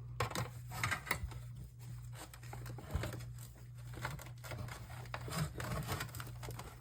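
Small clicks, taps and rustles of plastic monitor parts being handled and pried at, over a steady low hum.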